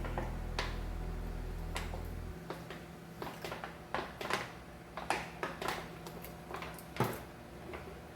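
A run of light, irregular knocks and clicks of objects being handled, about a dozen over several seconds, after the tail of background music dies away about two seconds in.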